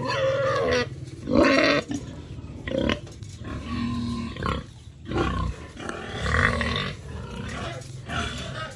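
Domestic pigs, a sow among them, squealing and grunting over and over, the loudest squeal about one and a half seconds in: pigs crying out for feed.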